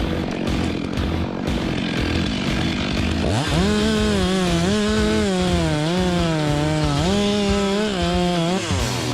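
Chainsaw idling roughly, then opened to full throttle about three seconds in and cutting. Its high engine note sags and recovers several times under load, then drops back to idle near the end.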